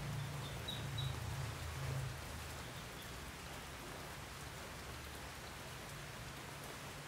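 Steady rain falling, an even hiss with no clear single events. A low hum fades out about two seconds in.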